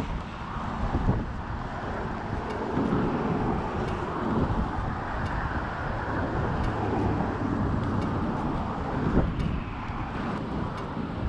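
Wind buffeting the microphone, with a steady low rumble of road traffic going by.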